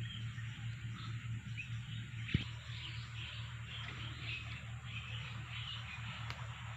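Plantation ambience: birds and insects chirping over a low steady hum, with one soft thump about two and a half seconds in.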